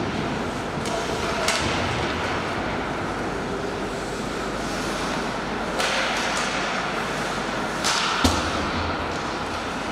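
Ice hockey play on a rink: steady scraping of skates on the ice, with several sharp knocks of stick and puck. The loudest comes near the end, along with a low thud.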